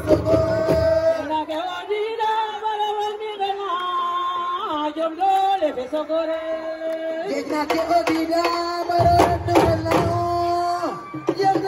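A woman singing into a microphone through a PA, with long held notes that waver and slide between pitches. Drums play under her for about the first second and again through much of the second half.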